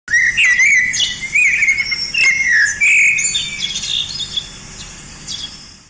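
Several wild birds calling over one another: a dense mix of chirps, whistles and squawky notes that slide up and down in pitch, loud at first and fading out toward the end.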